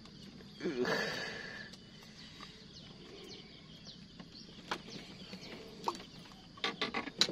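Hands working a freshly caught tilapia off the hook, with a few sharp clicks and rattles, bunched near the end. About a second in, a loud drawn-out call lasts about a second, and small birds chirp faintly throughout.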